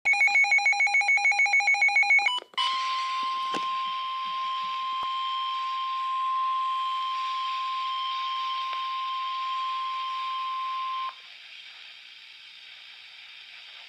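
Emergency Alert System weather-radio alert: a harsh, rapidly pulsing electronic burst of several tones for about two seconds, then the single steady NOAA Weather Radio warning alarm tone held for about eight seconds, which signals that a warning message follows. After the tone cuts off, only faint radio hiss remains.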